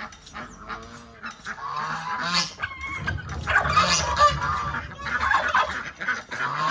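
A flock of domestic geese honking, many calls overlapping, getting busier and louder about a second and a half in, with other poultry calling among them.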